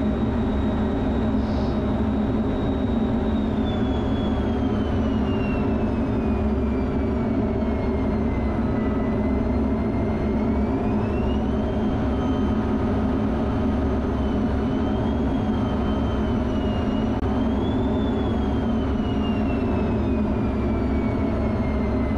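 Steady roar of an F-16 fighter jet's engine and airflow heard inside the cockpit. A high engine whine slides slowly down in pitch, climbs again about ten seconds in, wavers, then falls again as the engine's power changes.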